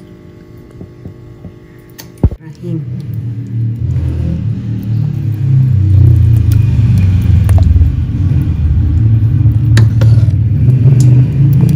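A faint steady hum, then from about two seconds in a loud low rumble, with a few light clinks of a steel ladle against an aluminium pot as kadhi with pakoras is ladled out.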